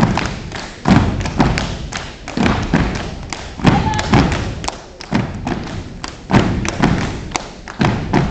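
Step team stomping in unison on mats over a gym floor: heavy thuds in an uneven, syncopated pattern of roughly two a second, each ringing out briefly in the hall.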